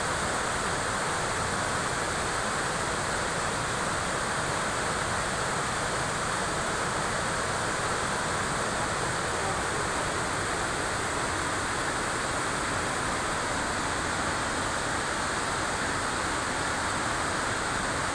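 River water rushing in a steady, unbroken hiss.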